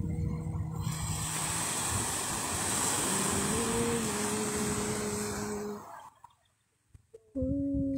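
Surf washing up onto a sand beach, heard as a steady rush with wind on the microphone. A low, steady hum with slight changes in pitch joins about three seconds in. The sound drops almost to silence for about a second near the end, then the hum returns.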